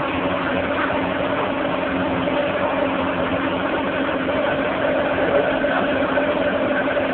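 Ferrari engine idling steadily, with an even, unchanging pitch and no revving.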